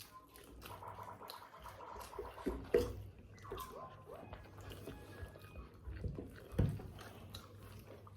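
Close-up eating sounds: wet chewing and mouth noises, with a few sharp clicks, loudest about 3 and 6.5 seconds in.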